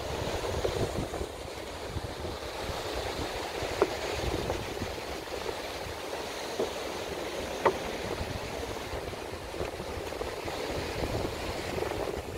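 Ocean surf washing over a sandstone rock shelf, with wind buffeting the microphone. Two short sharp clicks stand out, about four seconds in and again near eight seconds.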